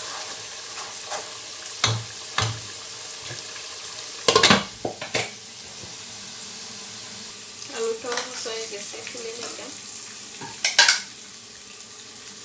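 Wooden spoon stirring a meat curry in a nonstick pot while oil sizzles steadily in the pans. Sharp knocks and clatters of spoon and cookware against the pots break in, loudest about four seconds in and again near eleven seconds.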